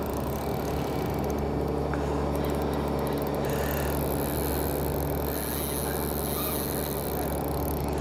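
A fishing boat's engine running steadily: a low, even drone with several held tones.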